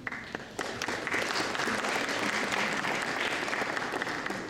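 Audience applause in a hall, a crowd clapping that swells about half a second in and eases off near the end.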